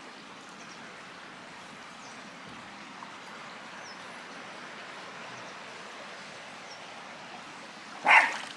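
Steady rush of a mountain stream flowing over rocks, with a few faint high bird chirps. Near the end comes one brief loud sound, much louder than the stream.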